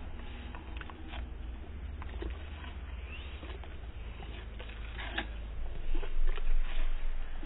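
Pug biting and chewing a hand-held apple slice: scattered crunches and wet mouth smacks, louder about six seconds in, over a steady low hum.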